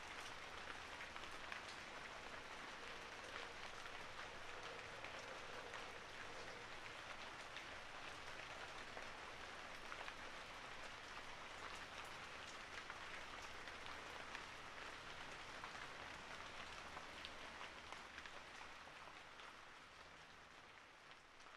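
Soft, steady rain, with many small drop ticks, fading out over the last few seconds.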